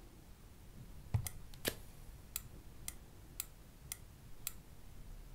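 Small handheld oscilloscope being handled and its buttons pressed: a knock and a sharper click about a second in, then five light clicks evenly spaced about two a second.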